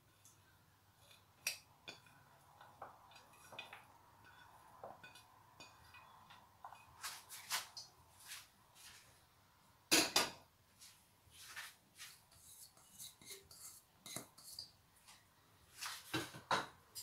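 A plate and crockery handled over a plastic tub: scattered light taps, clinks and scrapes as chopped vegetables and gram flour are tipped and scraped in. There is a louder double knock about ten seconds in and two more knocks near the end.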